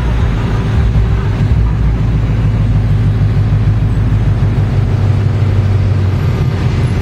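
Late-1970s Ford F-series pickup rolling slowly past, its engine and exhaust giving a steady low rumble.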